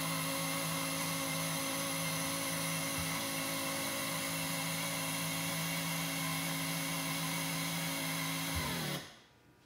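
Power tilt/trim pump motor of a 1978 Johnson Stinger 75 outboard running steadily while it tilts the engine up. Its pitch sags slightly just before it stops, about nine seconds in.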